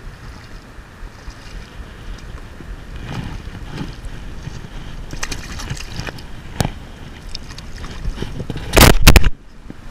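Wind buffeting the microphone with small splashes of a hooked crappie thrashing at the water's surface as it is drawn in by hand. A loud burst of noise a little before the end is the loudest moment.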